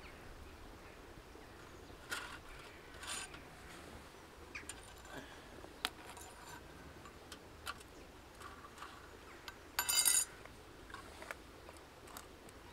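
Scattered light clicks, taps and scrapes of metal camp kit being handled, a spoon and a portable espresso maker, with one brief louder rattling clatter about ten seconds in.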